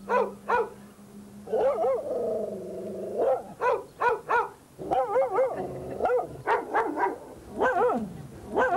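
Dogs barking in quick, irregular volleys, with one longer drawn-out call about two seconds in.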